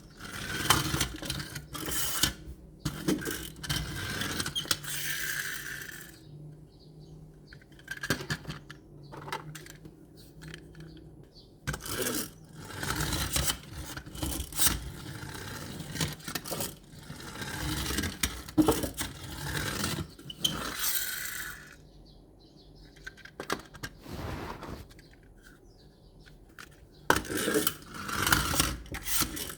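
Small diecast and plastic toy trucks being handled: clicks, taps and scraping of metal and plastic parts, coming in bursts with a couple of short quieter pauses.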